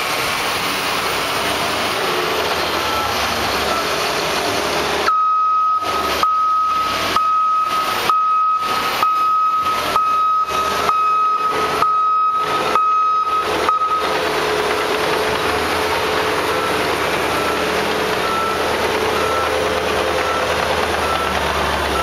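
Diesel engines of heavy machinery packing a silage pile run steadily. From about five seconds in to about fourteen seconds a reversing alarm beeps loudly at an even pace, about three beeps every two seconds. Fainter beeping at the same pitch comes back later on.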